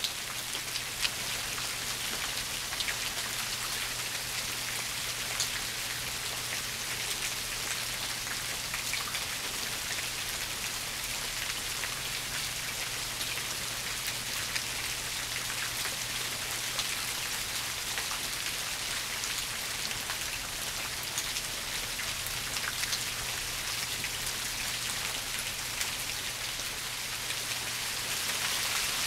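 Steady rain falling, with many single drops ticking sharply close by, over a faint steady low hum. The rain grows a little louder near the end.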